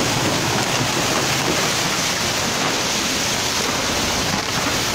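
Steady rushing noise of a landslide, a torrent of red mud and floodwater surging down a hillside.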